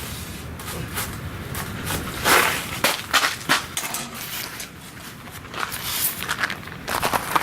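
Crunching of icy, crusted snow, a run of irregular short crunches with the loudest cluster a little over two seconds in and another group near the end.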